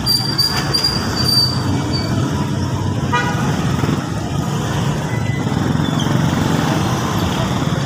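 Street traffic: a vehicle engine running steadily with road noise, a high thin tone in the first two seconds, and a brief horn beep about three seconds in.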